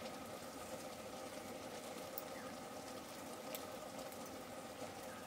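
A faint steady background hum, with a few soft snaps as leaves are picked off green stems by hand.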